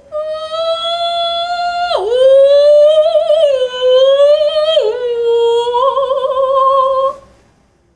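A woman singing unaccompanied without words: three long, high held notes with wavering vibrato, each broken off by a sharp downward slide, about two and five seconds in. The singing stops about a second before the end.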